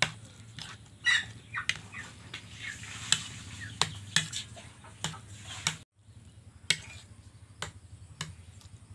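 A metal spoon mashing ripe mango pulp in a plate, with irregular sharp clinks and scrapes against the plate, about one or two a second.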